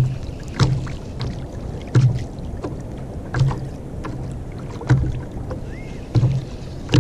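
Water slapping against a plastic sit-on-top kayak hull in repeated knocks, about one every second and a half.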